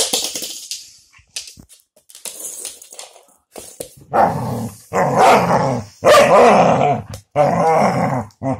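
Collie dog giving a run of short play barks and growls while worrying a fidget spinner toy, about five in quick succession through the second half. A sharp knock comes right at the start.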